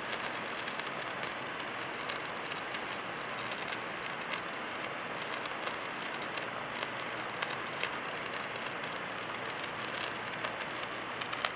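Handheld fireworks fizzing and crackling steadily, with a glass fūrin wind chime ringing briefly a few times.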